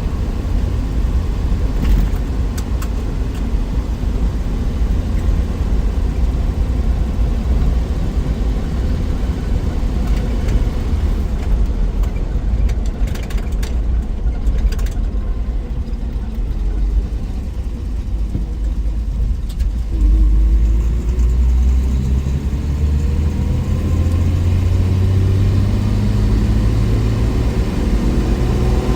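1963 Willys Wagon's 230 Tornado overhead-cam straight-six running on the road. It eases off around the middle, then pulls again from about two-thirds of the way in, its pitch rising steadily as it accelerates.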